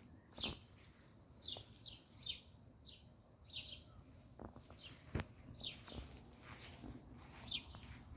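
A small songbird chirping over and over, short high notes that drop in pitch, about one every half second to second, with a pause in the middle. A single sharp click about five seconds in.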